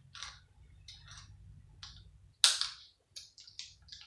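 Plastic parts of a PlayStation 3 cooling fan being prised apart: short scrapes and clicks, one louder crack about two and a half seconds in, then a few quick small clicks near the end.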